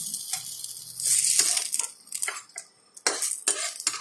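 Metal utensil clinking and scraping against a frying pan as fried fritters are lifted out, with hot oil sizzling over the first two seconds or so, then several separate clicks and knocks.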